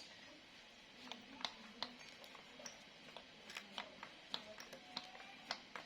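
Faint, irregular clicks and light knocks as the engine's coolant elbow is rocked back and forth bit by bit to work it loose, its gasket still holding it in place.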